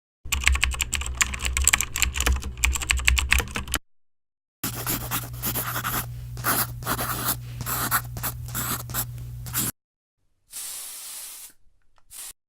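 Typing on a computer keyboard: two long runs of rapid key clicks with a short pause between them, over a steady low hum. A short soft hiss follows near the end.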